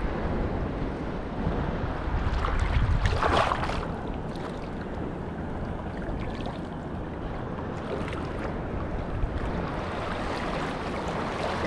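Wind buffeting the microphone over small waves washing across a shallow reef flat, with a brief louder rush about three seconds in.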